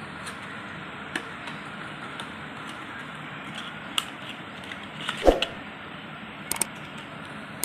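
Cardboard carton of hair removal cream being handled and opened: scattered light clicks and rustles over a steady faint hiss, with a louder knock about five seconds in and two quick clicks near the end.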